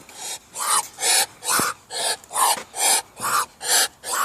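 A duck hissing over and over in rapid, rhythmic breathy bursts, about two a second. It is an agitated duck that hisses instead of quacking.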